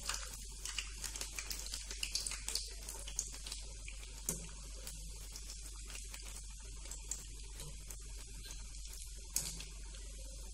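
Fritters deep-frying in hot oil in a kadai on medium flame, sizzling and crackling with many quick pops. The pops come thickest in the first four seconds or so, then settle to a steadier sizzle with the odd pop.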